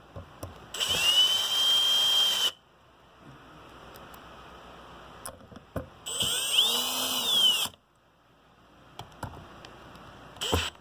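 Cordless drill/driver with a T15 Torx bit driving screws back into a small amplifier's case, running in two bursts of about two seconds each with a high whine. A brief burst comes near the end.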